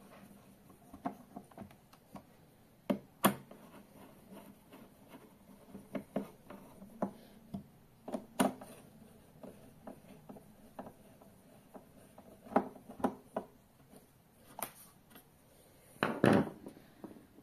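Screwdriver working the screws of a metal VESA adapter plate on a monitor's plastic back: scattered clicks, taps and scrapes of the metal shaft on screw heads and plate. A louder cluster of knocks and rubbing comes near the end.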